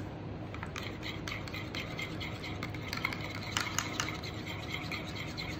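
Metal spoon stirring Greek yogurt and mint jelly in a small ceramic bowl, with light irregular clinks and scrapes of the spoon against the bowl, over a steady low background hum.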